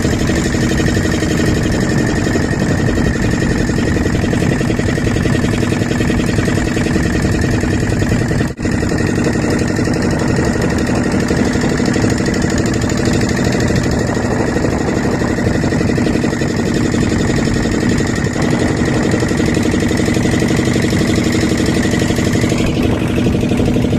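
Loud, steady engine-like mechanical drone that holds an even pitch throughout, with one momentary break about eight and a half seconds in.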